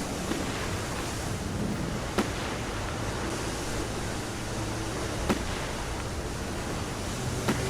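Steady rushing of water, with three sharp knocks: about two seconds in, about five seconds in, and near the end.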